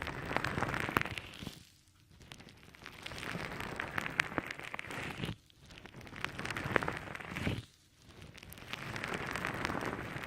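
Soft, wet, sticky squishing with fine crackles, as a squishy sponge-like material is repeatedly pressed and squeezed. It comes in four squeezes of two to three seconds each, with brief pauses between them.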